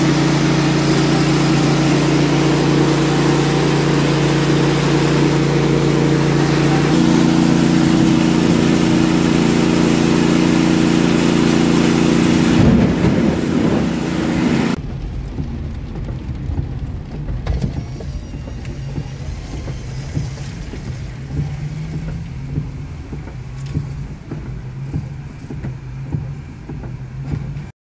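A mini huskless rice milling machine running steadily under load, with a shift in its tone about 7 seconds in. About halfway through it cuts to the inside of a moving car in the rain: a quieter road and engine hum with scattered raindrops ticking on the windshield.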